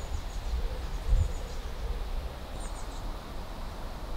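Outdoor park ambience: a steady low rumble of wind on the microphone, with one low bump about a second in and a few faint bird chirps near the middle.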